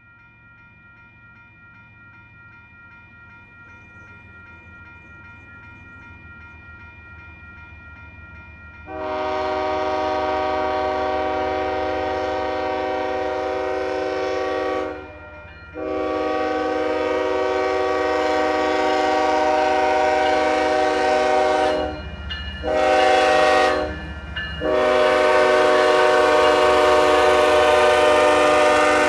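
Approaching Union Pacific freight locomotive: a low rumble builds for several seconds, then its air horn sounds a chord of several tones in two long blasts, a short one and a final long one. Long-long-short-long is the standard signal for a train approaching a grade crossing.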